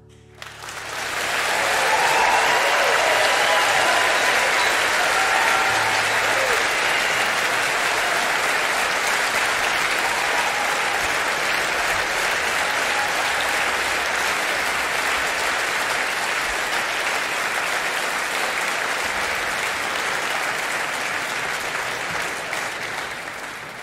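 Concert-hall audience applauding at the end of a song, starting suddenly about half a second in as the last note dies away and going on steadily, easing slightly near the end.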